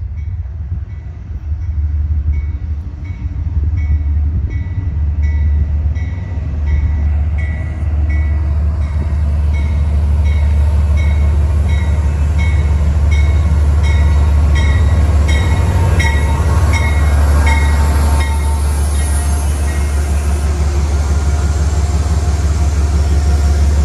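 Amtrak GE P32AC-DM passenger locomotive arriving at a station platform, its bell ringing steadily just under twice a second over the low rumble of the engine and train. The rumble grows louder as the locomotive draws up alongside.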